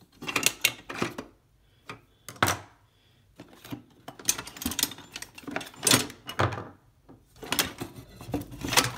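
Screwdrivers clattering and knocking as they are taken from a toolbox and set down on a wooden tabletop, in several irregular runs of clinks and knocks.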